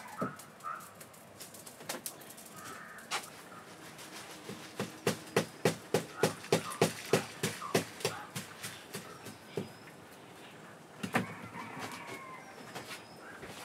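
A woven bamboo winnowing tray tapped in a quick, even series, about three taps a second for a few seconds in the middle, shaking dried red chillies and seeds off onto a clay plate. Chickens cluck and small birds chirp in the background.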